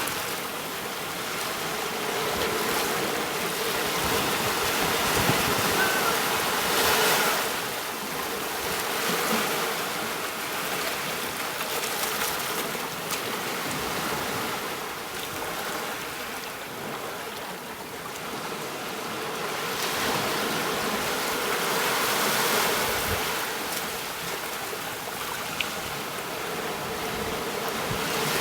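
Ocean surf washing onto a beach in slow swells, rising and falling every several seconds.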